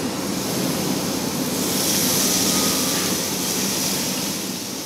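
Meat sizzling loudly on a hot tabletop Korean barbecue grill as sliced sausages are laid onto it with chopsticks; the sizzle swells about two seconds in, then eases.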